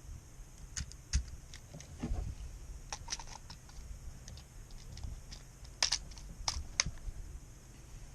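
Irregular small clicks and light taps over a low background hum, with a few sharper clicks about six to seven seconds in.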